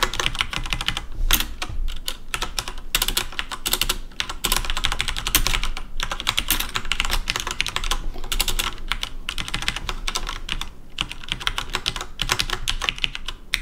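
Fast typing on a computer keyboard: a dense run of clicking keystrokes with a few short pauses.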